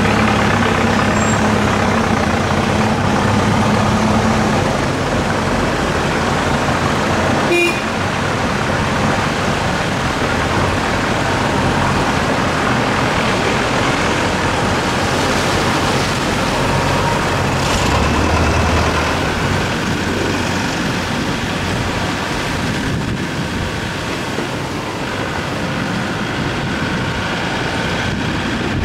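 Road traffic heard from a moving vehicle on a wet, muddy road: motorcycle and truck engines running under a dense, steady rush of road noise, with engine hum strongest in the first few seconds. One short sharp sound about seven and a half seconds in.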